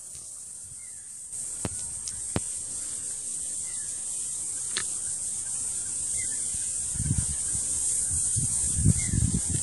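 Steady high-pitched insect chorus shrilling in the pasture, with a few sharp clicks early on and irregular low rumbles and thumps in the last few seconds.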